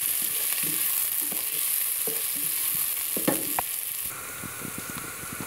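Chopped onions and green chilies sizzling in hot oil in a nonstick pot while a wooden spoon stirs them, with a steady hiss and scattered scrapes and knocks of the spoon against the pot, a cluster of them about three and a half seconds in.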